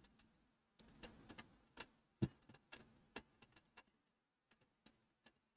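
Near silence with a scattered run of faint, irregular clicks and taps. The clearest comes about two seconds in, and they thin out after about three seconds.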